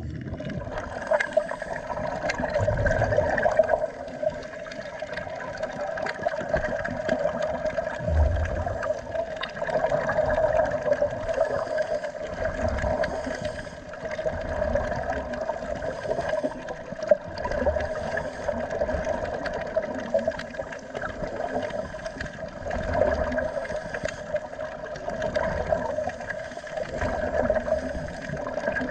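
Underwater sound of scuba divers breathing through their regulators: gurgling exhaled bubbles surge every few seconds over a steady hum.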